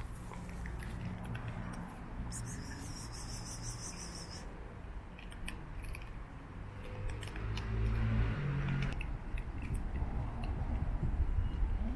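Kittens chewing and crunching dry cat kibble, small scattered crunches and clicks over a steady low rumble.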